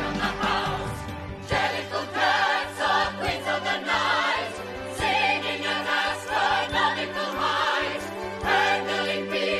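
A large group singing in chorus over instrumental accompaniment, the voices wavering with vibrato in phrases that swell and ease every second or so.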